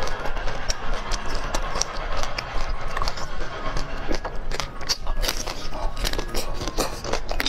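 Close-miked eating sounds: biting into and chewing chocolate-coated and plain ice cream bars, with many sharp, irregular clicks and crackles and wet mouth sounds.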